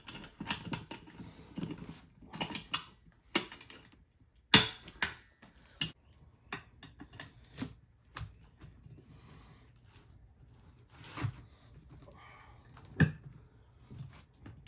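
Irregular metal clicks and knocks of screwdrivers and vice grips against a golf cart wheel rim as a new tire's bead is pried over it by hand. The clicks come thick in the first half and sparser later, with the sharpest knocks about four and a half seconds in and near the end.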